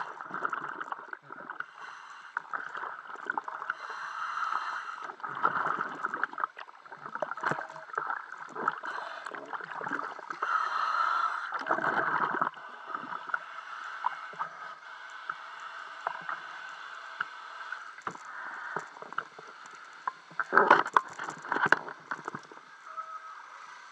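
Lake water sloshing, gurgling and splashing right at the microphone, which sits at the waterline. The water sounds swell loudest in a cluster of splashes a little before the end.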